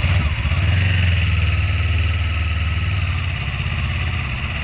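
Motorcycle engine running at low, steady revs with a fast, even pulsing beat and a steady hiss above it. It swells a little about a second in, then eases off slowly.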